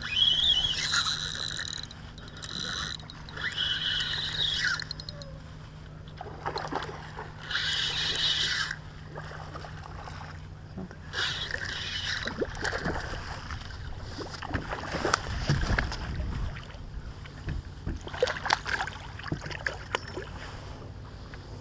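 Fishing reel being cranked in repeated short bursts as a hooked snook is played in, over a steady low hum, then water splashing as the fish comes to the boat in the second half.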